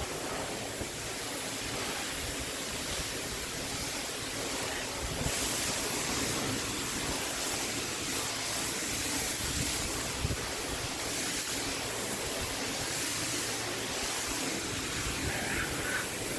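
Pressure washer lance spraying water onto imprinted concrete to rinse it down: a steady rushing hiss.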